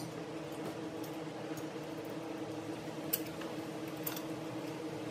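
Steady low hum of room tone, with a few faint metallic clicks of small steel bolts and nuts being handled, about three seconds in and again a second later.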